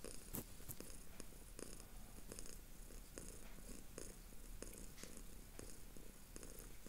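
Domestic cat purring faintly and steadily.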